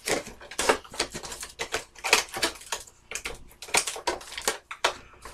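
Action figure's cardboard box being handled and opened by hand: a string of irregular clicks, taps and crinkles of the packaging.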